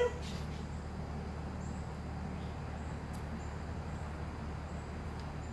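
Steady low background rumble, with faint short high-pitched chirps every second or so and a single small click about three seconds in.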